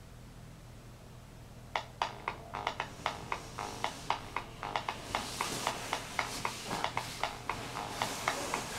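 A low steady hum, then from about two seconds in a quick run of sharp tapped clicks, roughly four a second and growing denser, with a hiss swelling up behind them: the build-up at the start of a music track.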